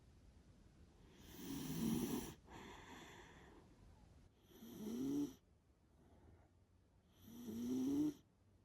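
A dog snoring in its sleep: three snores about three seconds apart, each swelling and then cutting off sharply, with quieter breathing out between them.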